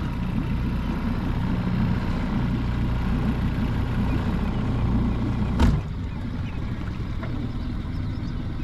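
A boat's engine running slowly with a steady low hum. About two-thirds of the way in there is a sharp clunk, after which the engine runs on more quietly.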